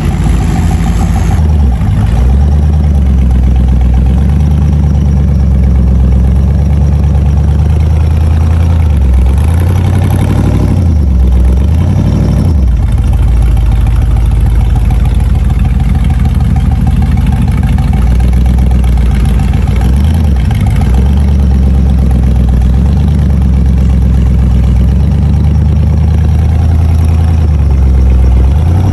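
Off-road rock crawler's engine running at low revs, rising and falling in pitch as the throttle is worked. It revs up briefly about ten and twelve seconds in, and again around twenty seconds in.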